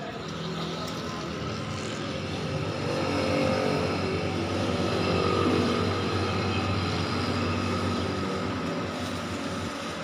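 An engine running steadily, growing louder to a peak about halfway through and then fading, like a motor vehicle passing slowly.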